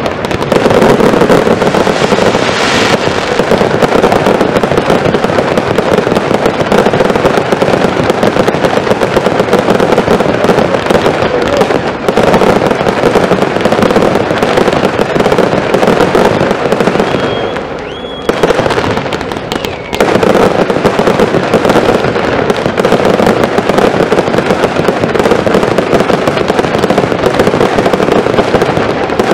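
A fireworks display going off in a dense, continuous barrage of rapid bangs and crackle from ground fountains and low aerial bursts. About two-thirds through it eases for a couple of seconds, with a short whistle, then the barrage picks up again.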